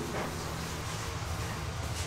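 A rolling pin rolled over a large sheet of donut dough on a floured wooden bench: a soft, even sound with no knocks, over a steady low hum.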